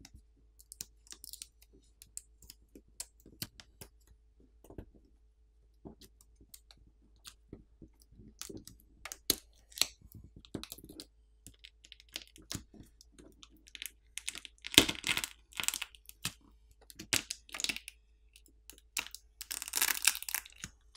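Adhesive pull tabs under a smartphone battery being pulled and peeled free: scattered small clicks and crackles, then longer crinkling, tearing stretches about two-thirds of the way in and again near the end as the adhesive lets go.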